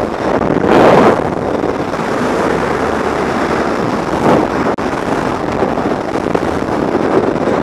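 Airflow rushing across a skydiver's camera microphone at high airspeed, a dense, steady roar of wind noise with a louder surge about a second in.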